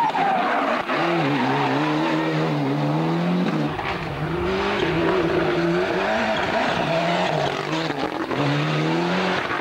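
Ford Escort RS Cosworth Group A rally car's turbocharged four-cylinder engine at full throttle, its pitch climbing and then dropping back several times as it runs through the gears. The sound is cut together from separate passes, with a change about four seconds in.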